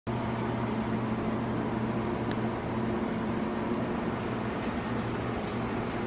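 Steady low machine hum, unchanging throughout, with a faint click a little over two seconds in.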